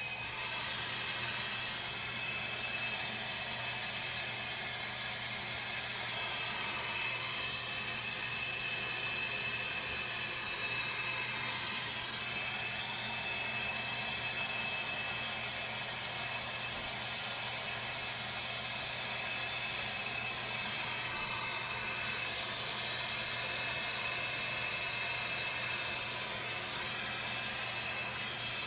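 Gas soldering torch burning with a steady hiss, its flame heating a 2-inch copper pipe joint and ball valve.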